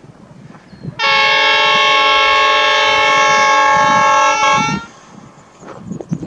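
Pacific National diesel freight locomotive sounding its multi-tone horn in one long, loud blast of about four seconds, starting about a second in. The approaching train's low engine noise is heard on either side of it.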